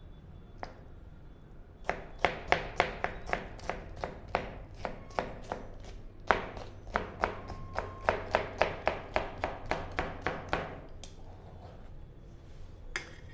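Kitchen knife chopping a green bell pepper on a plastic cutting board: a steady run of sharp knocks, about three or four a second, with a brief pause partway through, stopping a couple of seconds before the end.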